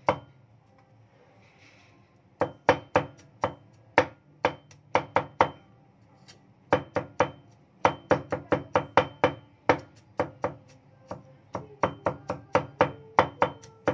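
Cleaver chopping garlic on a thick wooden chopping block: runs of sharp knocks, about four to five a second, each with a brief metallic ring, starting about two seconds in and broken by a short pause midway.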